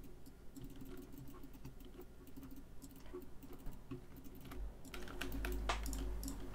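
Faint computer keyboard keystrokes and clicks, irregular and scattered, as Blender shortcut keys are pressed. A low steady hum comes in about four and a half seconds in.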